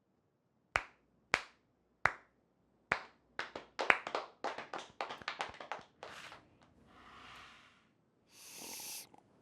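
Hand claps: four single claps spaced out, then quicker, overlapping clapping, like a slow clap catching on. Near the end come two short bursts of hiss.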